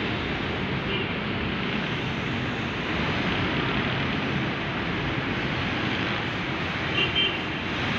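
Steady noise of street traffic with motorcycles passing, and two brief high chirps about seven seconds in.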